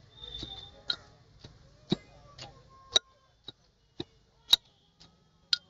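Pestle knocking in a stone mortar as boroi (jujubes) with green chillies and coriander are pounded into vorta: sharp, uneven knocks about twice a second.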